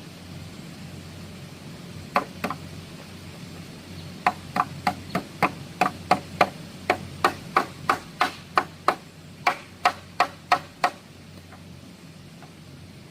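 Repeated sharp blows of a hand tool: two strikes about two seconds in, then a steady run of about twenty, roughly three a second, stopping about eleven seconds in.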